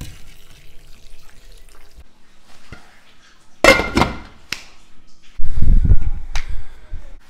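Hot water pouring from a kettle onto frozen kale in a steel pot, then the pot's metal lid clanks down with a ringing clatter about halfway through. Near the end comes a loud low rumble.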